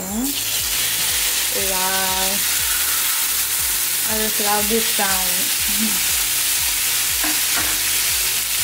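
Masala-marinated fish steaks sizzling in butter and a little oil on a hot flat nonstick pan. The steady sizzle starts as the slices go into the fat.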